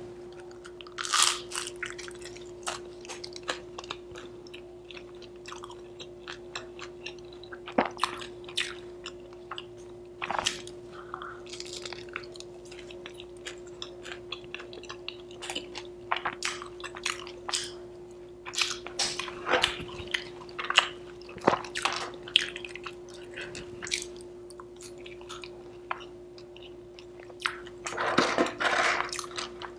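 Close-up chewing and biting of butter masala dosa: wet mouth clicks and smacks, with louder bites about a second in, around eight seconds in and in a cluster near the end. A steady low hum runs underneath.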